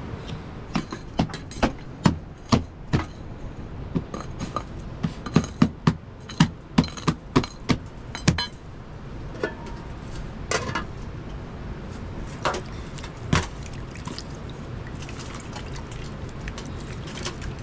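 A run of sharp knocks and clinks, about two a second for the first eight seconds, then only a few scattered ones, over a steady background hiss.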